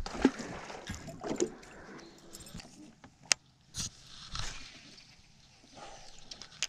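Handling noise from an angler working a baitcasting rod and reel in a small boat: scattered clicks, knocks and clothing rustle, with one sharp click a little past three seconds in.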